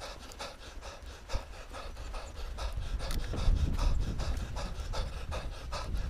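Mountain biker breathing hard in rapid, regular breaths while riding a dirt forest trail, over a low rumble from the ride that grows louder about three seconds in.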